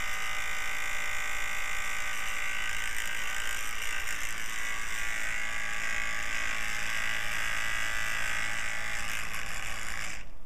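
Small electric fan running with a steady motor buzz and whine, switched off abruptly near the end.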